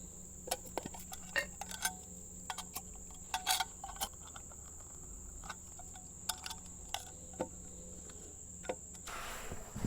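Insects trilling steadily at one high, unbroken pitch, with scattered light clicks and knocks and a brief rustle near the end.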